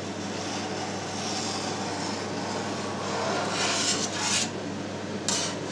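Knife blade drawn through set cheese curd in a stainless steel vat, cutting it in parallel strokes, with the blade rubbing and scraping against the steel; the scraping grows louder a few seconds in. A steady low hum runs underneath.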